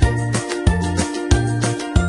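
Background music with a steady beat and a bass line, a strong beat about every two-thirds of a second.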